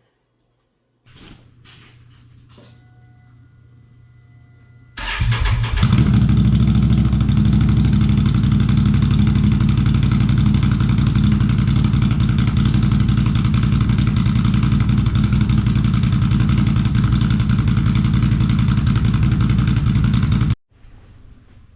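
Can-Am Renegade 1000 XMR's V-twin engine starting about five seconds in and then running steadily. It is running on both cylinders again now that the arcing front spark plug boot has been repaired. A faint hum with a few steady tones comes before the start, and the engine cuts off near the end.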